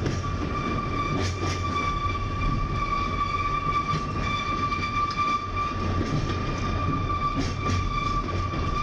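Oigawa Railway Ikawa Line train running, with a low rumble and a steady high squeal from the wheels, and a few short clicks from the track.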